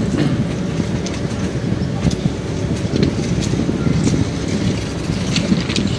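Train running along the track, heard from on board: a steady rumble of wheels on rails with scattered sharp clicks and rattles.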